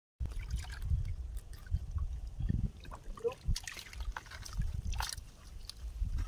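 Wet mud and water being worked by hand in a mud-filled bamboo basket while climbing perch are picked out: scattered small wet splashes, drips and clicks over a steady low rumble.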